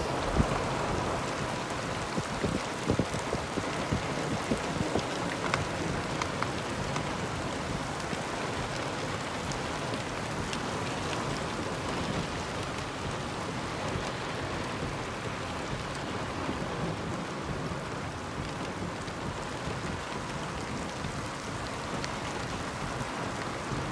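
Heavy rain falling steadily, with scattered drops ticking close by.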